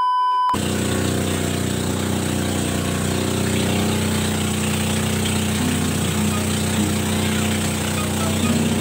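Motorized bangka's small engine running steadily, a low even drone. A short high beep sounds at the very start.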